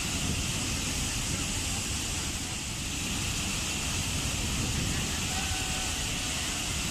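Waterfall: steady rushing of falling water, an unbroken even roar with no breaks.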